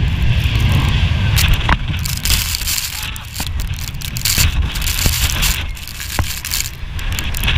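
Jet blast from a departing airliner: a strong gale buffets the microphone over a low jet-engine roar. Sand crackles as it strikes the camera and people.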